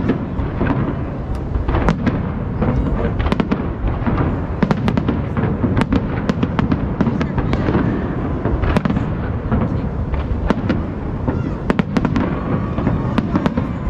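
Aerial fireworks display: shells bursting in quick succession, with many sharp cracks and bangs over a continuous low rumble.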